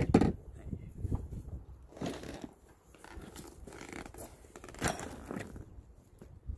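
Handling noise from a tool bag full of hand tools: rustling of the fabric and tools clinking as it is lifted and carried, then a sharp knock about five seconds in as it is set down on the table.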